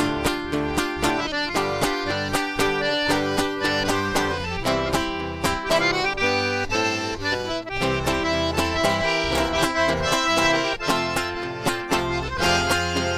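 Accordion playing the melody of a sertanejo song's instrumental introduction, over a steady, evenly strummed string accompaniment.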